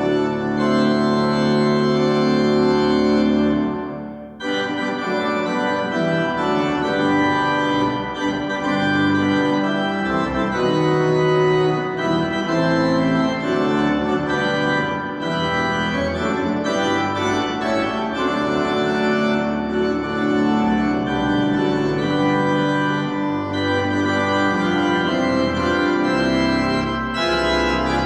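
Church organ playing a piece of sustained chords that move from one to the next, with a brief break about four seconds in.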